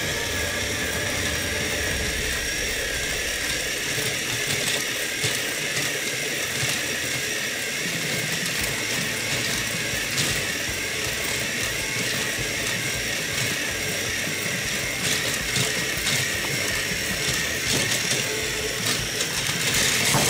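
Plarail battery-powered toy train motors whirring and their gears grinding under load as two engines push against each other on plastic track, a steady whir with a wavering pitch and small clicks throughout. It grows louder and busier near the end as one train tips off the track.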